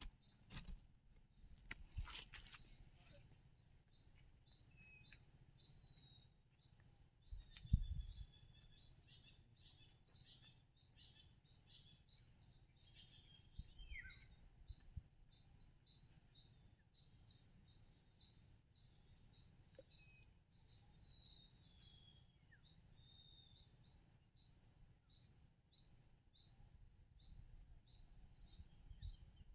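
A bird calling faintly, over and over, in short high chirps at about two a second. A single low thump comes about eight seconds in.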